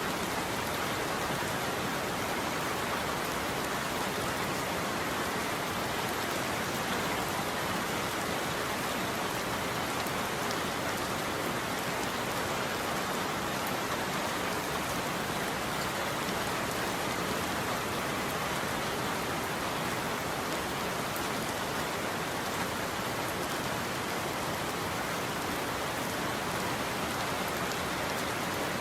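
Steady rainfall, an even hiss of rain on a surface with fine droplet ticks, unchanging throughout.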